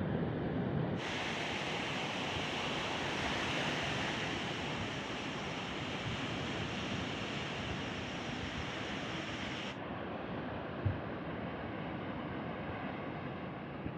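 Steady rush of ocean surf and wind, with a brief low thump late on.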